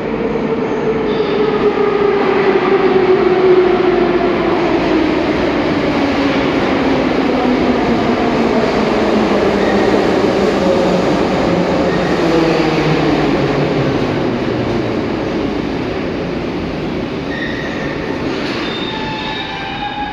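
81-717/714 metro train pulling into the station and braking to a stop. The traction motor whine falls steadily in pitch as it slows, with a few short high squeals near the end as it stops.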